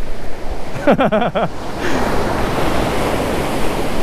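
Ocean surf breaking on the beach, with wind on the microphone; a wave breaks about two seconds in and its wash fills the rest. A brief voice is heard about a second in.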